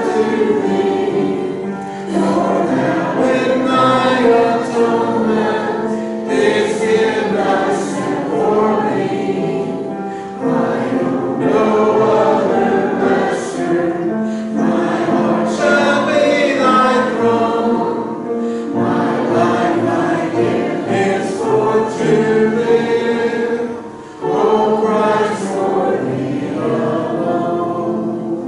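Church congregation singing a hymn together, in long sung phrases with short breaks between them.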